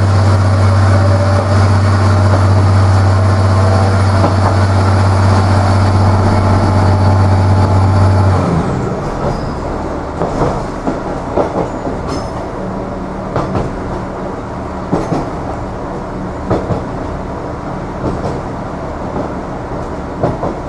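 Irish Rail 29000 class diesel railcar heard from inside the carriage. A loud steady hum from the engine and drive stops abruptly about eight seconds in. After that the train runs on more quietly, with wheels clicking and knocking over rail joints.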